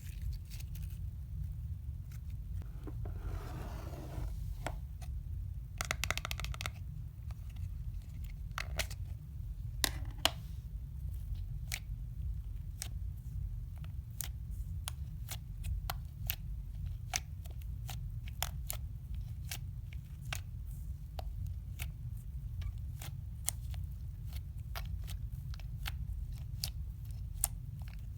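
Slime being squeezed and pressed by hand, giving a long run of sharp crackling clicks and pops with a short dense crackle about six seconds in, over a low steady hum.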